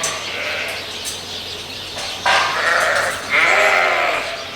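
Sheep bleating: a few fainter bleats, then two loud, long bleats back to back about halfway through.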